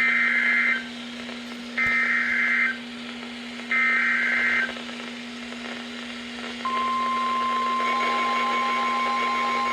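Three bursts of Emergency Alert System SAME digital header data, buzzy data screeches just under a second each and about two seconds apart, announcing a new warning. About seven seconds in, the NOAA Weather Radio 1050 Hz warning alarm tone starts and holds steady.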